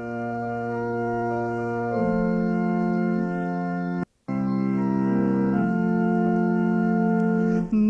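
Organ playing the introduction to a hymn: steady held chords that change a few times. The sound cuts out for a moment about four seconds in.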